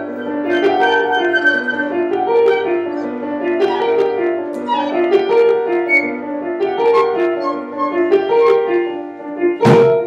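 Small live woodwind ensemble, flutes and a bass clarinet, playing a repeating figure of held notes that step up and down in overlapping lines. A few sharp knocks break in near the end.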